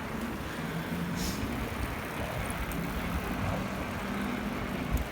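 Steady road traffic rumble with wind noise on the microphone, and a faint low engine hum that drifts slightly in pitch.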